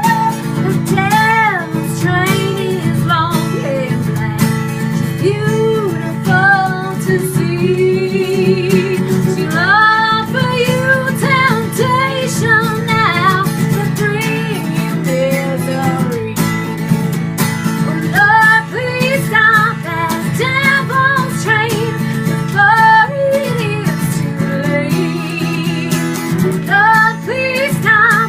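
A song with strummed acoustic guitar and a woman singing a wavering melody with vibrato.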